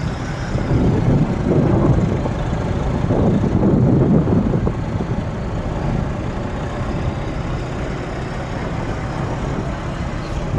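Car driving along a road, heard from inside the cabin: steady engine and tyre rumble, swelling louder for a few seconds in the first half.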